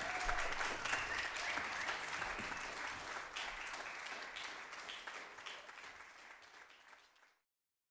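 Concert audience applauding, a dense patter of many hands clapping that fades away steadily and cuts off suddenly about seven seconds in.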